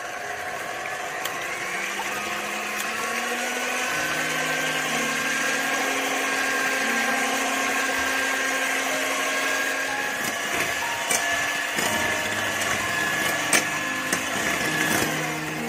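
Electric hand mixer whisking eggs at medium speed: a steady motor whine that rises a little in pitch over the first couple of seconds and then holds, with a few clicks of the beaters late on, cutting off shortly before the end.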